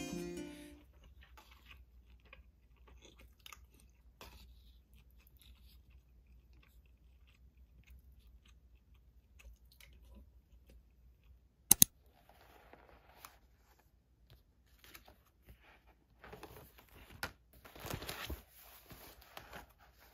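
Faint eating sounds: chewing, with light clicks of a spoon against a stainless steel bowl and one sharp clink about twelve seconds in. A louder stretch of chewing and scraping comes near the end.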